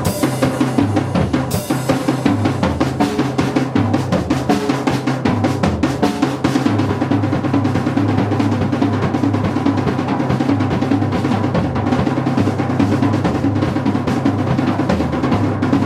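Ludwig drum kit played in a fast, continuous solo: dense rolls and fills on snare and bass drum, with a Zildjian cymbal crash about a second and a half in.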